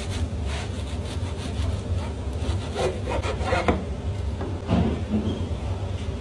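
Serrated bread knife sawing back and forth through crusty pide on a wooden board, followed by crackling of the crust as the cut pieces are pulled apart. A steady low hum runs underneath.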